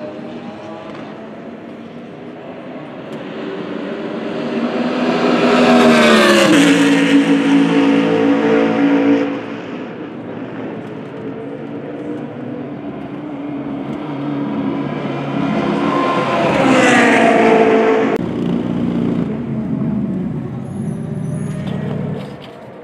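GT3 race car engines passing close by twice. Each engine note swells and then drops in pitch as the car goes past, settling into a steady note before cutting off abruptly.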